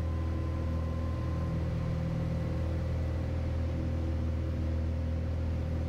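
Piper Turbo Arrow's turbocharged six-cylinder engine and propeller running steadily at climb power just after takeoff, a constant drone heard from inside the cockpit.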